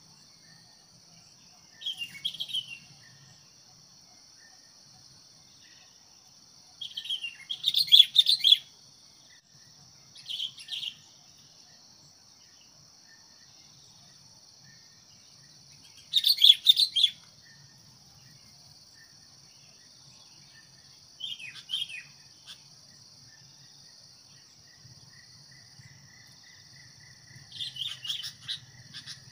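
Sooty-headed bulbuls calling in short, loud chattering bursts, about six times, as a decoy bird and wild birds answer one another. A steady high drone runs underneath.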